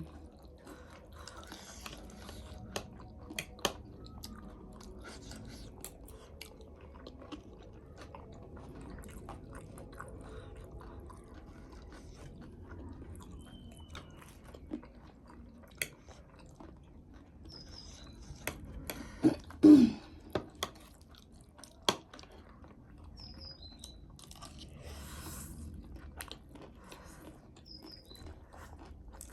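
Chewing and crunching of chatpate and noodles, with many scattered sharp clicks. A short, loud voiced sound with a falling pitch comes a little before the two-thirds mark.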